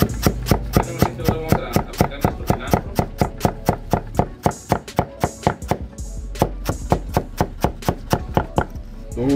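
Chef's knife rapidly chopping green onions and cilantro on a wooden cutting board: quick, even knocks of the blade on the board at about five strokes a second. Background music plays underneath.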